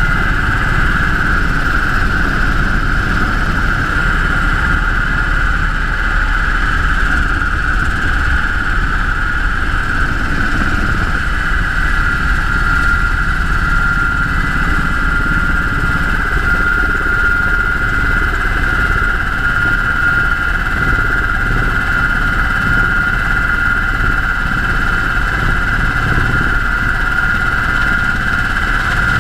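Sikorsky UH-60 Black Hawk helicopter in flight, its twin turboshaft engines and rotors running steadily with a low rumble under a constant high whine.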